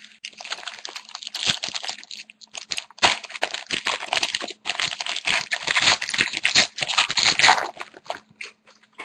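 Foil wrapper of a hockey card pack crinkling and being torn open, a dense crackle with a short pause near the middle.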